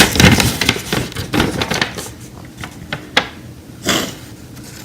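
Packaging and small items being handled: paper and plastic rustling with several clicks over the first two seconds, a single sharp click about three seconds in, then a brief rustle.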